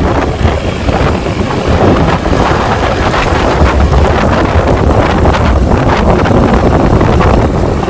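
Wind buffeting the microphone: a loud, steady rumble with scattered crackles.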